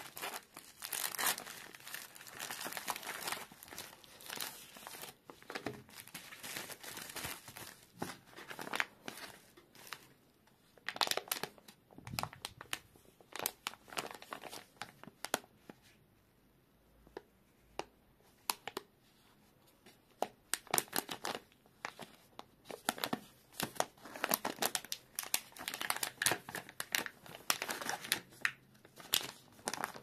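Plastic packaging crinkling and tearing as a mailer bag is ripped open and a plastic retail pouch is handled, in irregular bursts of crackles with a quiet stretch about halfway through.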